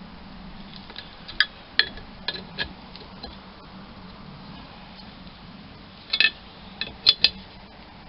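Sharp metal clinks and clicks from a socket wrench on the machine's leg bolts as they are snugged up by hand: four separate clinks over the first few seconds, then a quick cluster near the end.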